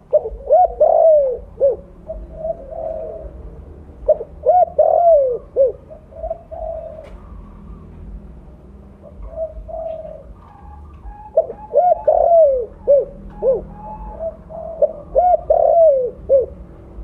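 Spotted dove (tekukur) cooing in its big, full voice: about four phrases of several quick, arching coos, with softer coos in between.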